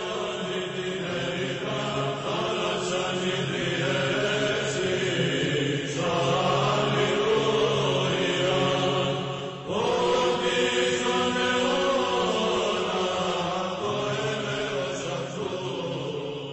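Background music of liturgical chant: voices singing a slow melodic line over a steady low held note, with a brief break just past the middle.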